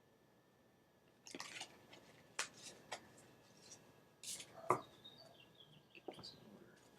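Tarot cards being handled: faint scattered taps and short papery rustles as cards are moved and flipped.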